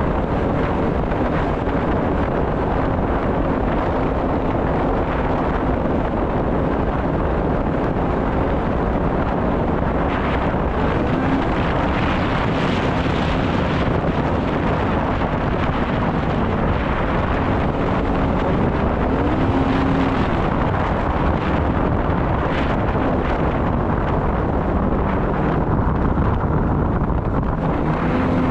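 Snowmobile engine running steadily under heavy wind noise on the microphone. The engine note rises and falls briefly twice, as with short changes in throttle.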